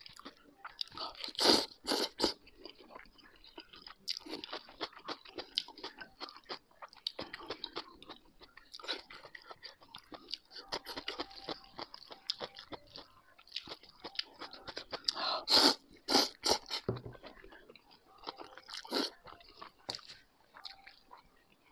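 A person eating noodles close to a clip-on microphone: wet chewing and mouth noises throughout, with clusters of loud slurps about two seconds in and again after about fifteen seconds.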